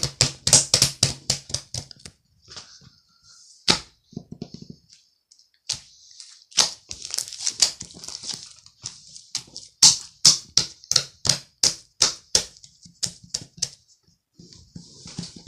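A run of sharp clicks or taps, about four a second at first. After a pause of a few seconds with a single click, they resume at about three a second.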